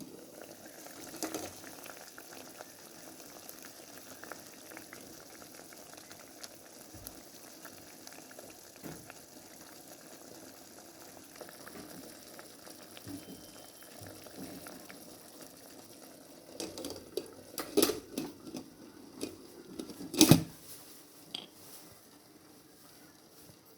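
Liquid bubbling in a pot on the boil, a steady hiss dotted with small pops, with a run of sharp knocks and clinks about three-quarters of the way through.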